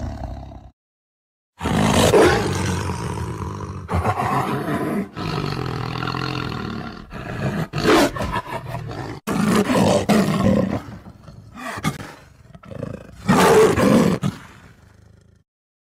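Lions roaring: a series of loud, deep roars and grunting calls from several spliced recordings, with a short silent gap about a second in between clips.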